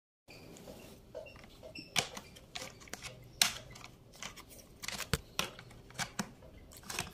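Hard plastic parts of a child's potty training ladder knocking and clicking as they are handled and fitted together: a string of sharp, irregular clicks, the loudest about three and a half seconds in.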